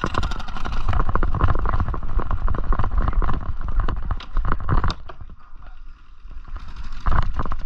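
Running footsteps on dry dirt and grass, fast and rapid, easing off for about a second and a half after the middle and then picking up again.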